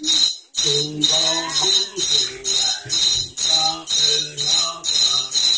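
A Hmong shaman's jingle rattle shaken in a steady beat, about two shakes a second, while a man chants over it: the accompaniment of a ua neeb soul-calling (qoov ntsuj) rite.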